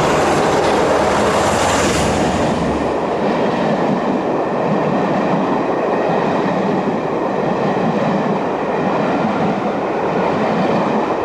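Passenger train running past on the line: a steady loud rush of wheels on rail, with a deeper rumble that fades about three seconds in.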